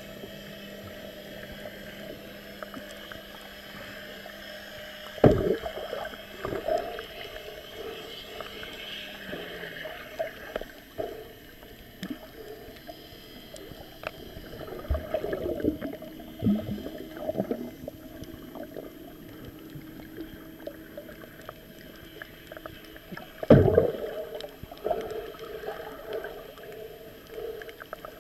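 Underwater sound heard through a waterproof camera housing while snorkeling: muffled gurgling and sloshing of water, with a low steady hum that slides down in pitch about ten seconds in. Two loud thumps, about five seconds in and about twenty-three seconds in, are the loudest sounds.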